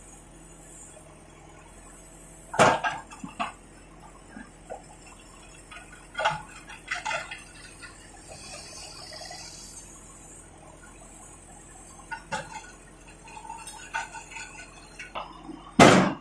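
Backhoe loader's bucket scraping and knocking against broken concrete and rubble: a series of sharp clattering impacts a few seconds apart, the loudest near the end, over the low steady running of the machine's engine.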